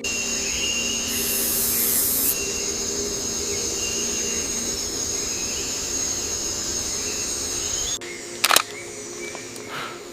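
Steady outdoor nature ambience: an even hiss with sustained high tones. About eight seconds in it cuts abruptly to a quieter background, broken by two sharp clicks.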